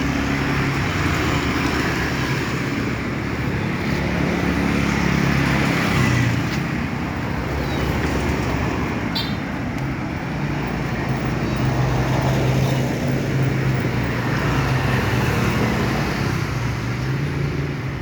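Road traffic passing: a steady engine hum and tyre noise that swell and fade slowly as vehicles go by.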